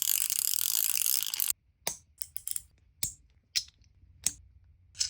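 A 3D-printed plastic ratchet mechanism clicking rapidly for about a second and a half. It stops suddenly, then gives a handful of single, separate clicks.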